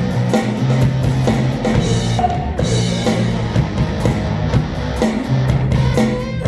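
Live band playing a punk rock song in an instrumental stretch without vocals: drum kit with kick drum, over sustained bass and guitar.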